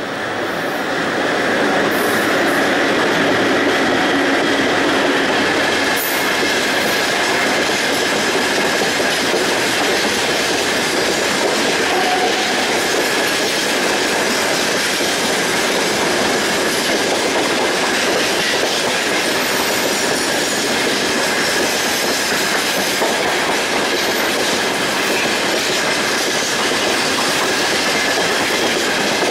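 Freight train of open-top gondola wagons rolling past behind a VL11M DC electric locomotive: steady loud rumble and clickety-clack of wheels over the rails, with a faint steady high whine. The sound builds over the first couple of seconds as the locomotive goes by, then holds as the wagons stream past.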